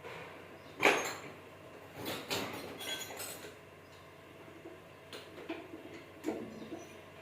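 A few scattered knocks, clinks and rattles of hard objects being handled. The loudest is a sharp knock about a second in, with a cluster of rattling knocks soon after and lighter clicks near the end.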